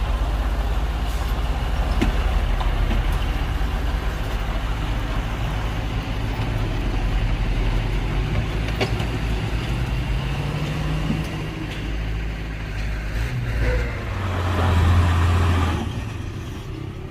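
Heavy diesel engine of earthmoving machinery running steadily, with the pitch rising briefly about ten seconds in and the engine swelling loudest near the end before easing off.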